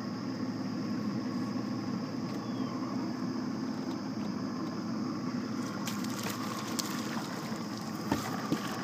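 Boat motor running steadily at low speed, with a few light knocks near the end as the net is handled at the gunwale.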